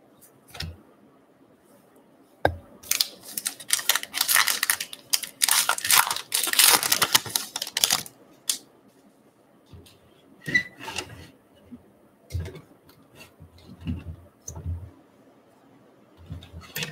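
A baseball card pack's wrapper being torn open and crinkled, a dense crackling that lasts several seconds. It is followed by scattered soft taps and slides of the cards being handled and squared up.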